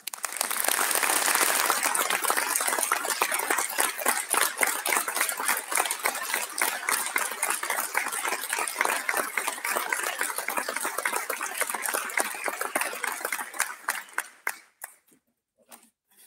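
A roomful of people applauding, starting at once and loudest in the first couple of seconds, then thinning out and dying away about fourteen seconds in, with a few last claps near the end.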